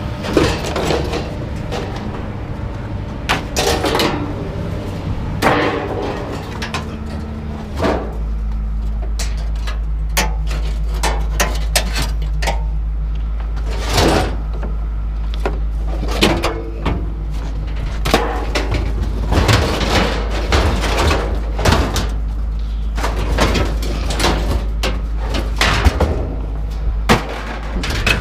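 Scrap metal being unloaded by hand, with repeated clanks, bangs and clatters as pieces are tossed and dropped. A steady low engine rumble grows louder about eight seconds in.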